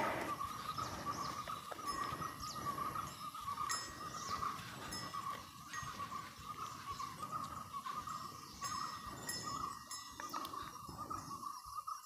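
Light metallic bell clinks coming irregularly every second or so, typical of bells on grazing cattle, over a steady high-pitched wavering drone.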